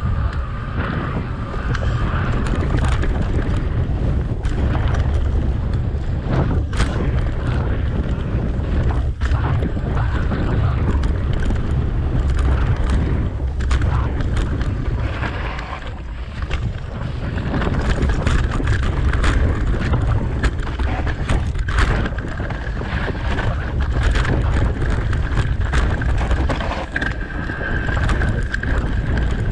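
Wind noise on the microphone of a mountain bike's camera with tyre rumble on a dirt trail, plus frequent short rattles and knocks from the bike over bumps. A faint steady whine sits in the background at the start and near the end.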